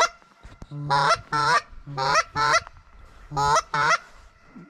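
Goose-like honking: three evenly spaced pairs of loud honks, the pairs a little over a second apart.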